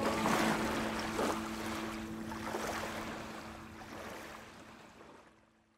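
Closing music ending: a held low chord over the sound of ocean surf, fading steadily away to silence at the very end.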